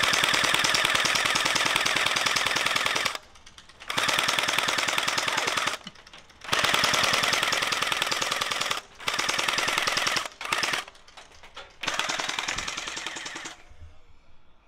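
Electric gel blaster (water-bead toy gun) firing full-auto: a fast rattle of shots in about six bursts of one to three seconds each, separated by short pauses.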